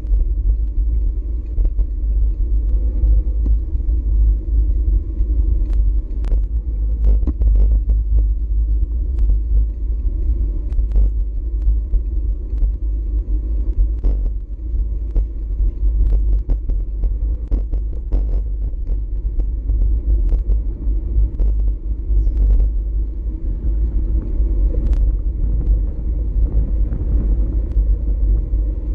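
Wind rumbling steadily on a GoPro Hero4 Session's microphone while riding a bicycle, with scattered sharp clicks and rattles through it.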